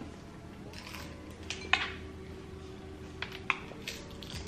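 Eating at a table: a few sharp clicks of a fork and cutlery against a plate, with the mouth sounds of people chewing fried chicken and fish. A faint steady hum runs underneath for a couple of seconds.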